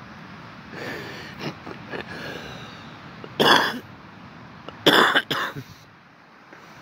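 A person clearing their throat and coughing, with two loud coughs about a second and a half apart in the middle.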